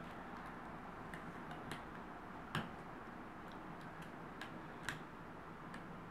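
Small irregular clicks of a hook working rubber bands on a plastic rubber band loom, the bands pushed down and looped over the pegs; the two loudest clicks come about two and a half and five seconds in, over a faint steady hiss.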